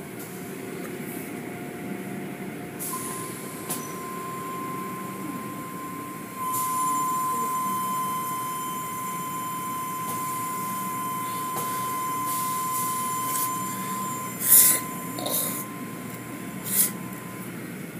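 Automatic car wash heard from inside a car: a steady hiss of water spray and machinery with a steady high whine running through most of it, getting louder about six seconds in. Three short, loud bursts of hissing spray come near the end.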